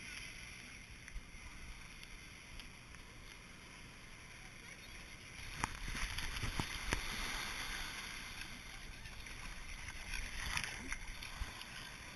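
Small surf waves washing and sloshing in the shallows close to the microphone. The sound grows louder about five and a half seconds in, with a pug splashing as it runs through the water.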